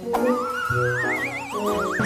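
Cartoon magic transformation sound effect: a warbling, whistle-like tone gliding upward, then a second quicker rise near the end, over background music.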